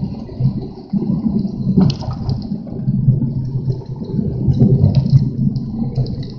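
Strong gusty wind buffeting the microphone: a loud, uneven rumble that surges and eases every second or so.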